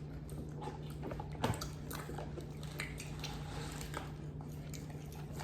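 Someone biting into and chewing homemade chicken nuggets, with small wet mouth clicks throughout and a louder bite about a second and a half in.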